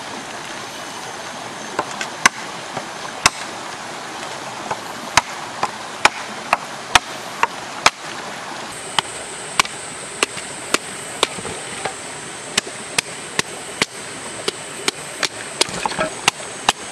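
A large bush knife chopping into the trunk of a thin green sapling: sharp strikes about two a second, in runs with short pauses between them.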